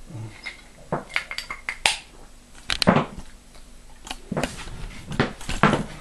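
Clatter of dishes and other household objects being handled: irregular sharp knocks and clinks, several in quick succession.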